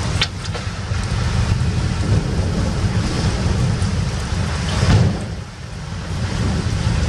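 Hurricane wind and heavy rain beating against a window: a deep steady rumble with hiss over it. There is a sharp tap near the start, and the storm surges loudest about five seconds in before easing briefly.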